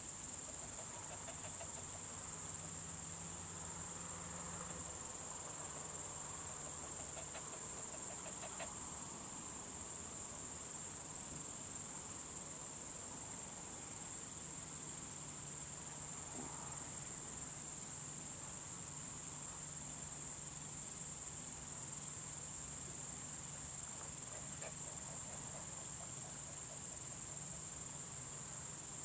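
Crickets chirring in a continuous high-pitched drone, with a faint low hum beneath.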